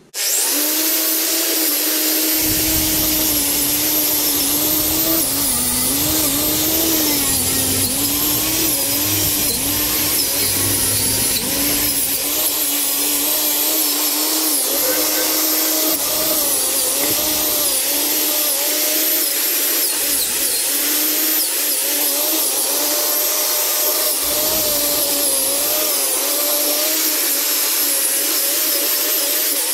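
Electric angle grinder with an abrasive disc grinding rust and muck off a metal trolley frame. The motor starts abruptly and runs loudly, its whine wavering and dipping in pitch as the disc is pressed against the metal.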